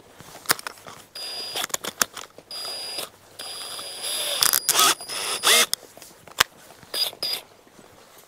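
Drill-driver running in several short bursts with a steady high whine, driving screws into wooden facade battens, with a few sharp clicks and knocks between the runs. Near the middle, two louder runs have pitch sweeping up and down.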